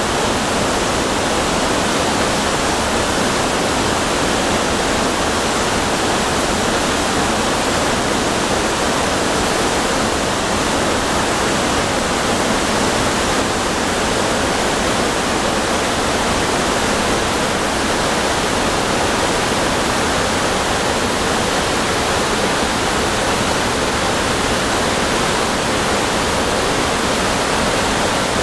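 Large tiered waterfall heard close up from the base of one tier: a loud, steady rush of falling water crashing onto rock.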